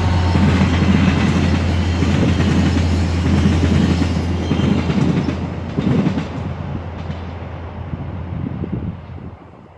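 VIA Rail F40PH diesel locomotive passing at speed, its 16-cylinder EMD prime mover giving a strong steady low drone, followed by LRC passenger coaches rolling by with wheel-on-rail noise. The sound fades away near the end as the train moves off.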